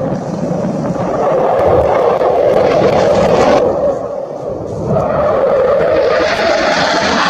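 Jet fighter engine noise: a loud, steady rush that eases briefly about three and a half seconds in and builds again from about five seconds.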